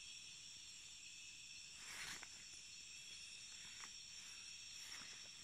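Steady, high-pitched chorus of night insects, faint but unbroken. A brief rustle about two seconds in and a couple of fainter short rustles near the end.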